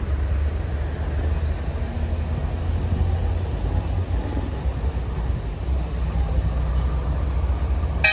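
Steady low rumble of street traffic, with buses and lorries passing close by.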